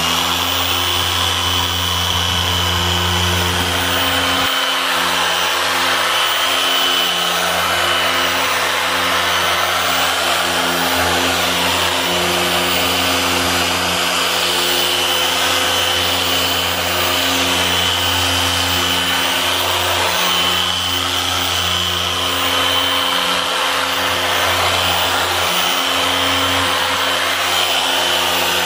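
Electric orbital polisher with a small foam pad running at speed setting 5, buffing a plastic headlight lens with all-in-one polish. It gives a steady motor hum and whine, whose low drone dips briefly a few times as the pad is pressed and moved across the lens.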